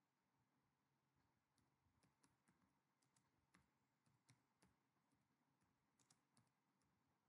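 Very faint, irregular clicks of a computer keyboard being typed on, a few keystrokes at a time.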